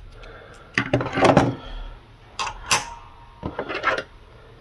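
Handling noise of small metal tools on a wooden table: a digital caliper, a brass key and a knife being moved and picked up, in three short bursts of knocks and rubs, the loudest about a second in.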